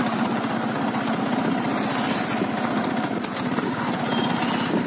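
Motorcycle engine running at a steady speed while riding.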